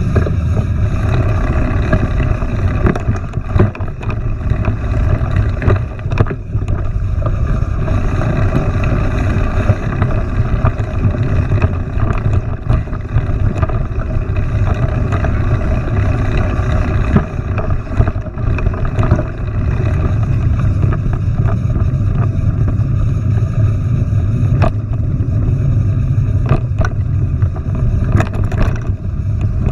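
Steady low rumble of wind buffeting the microphone on a moving mountain bike, with scattered sharp knocks and rattles from the bike over rough ground.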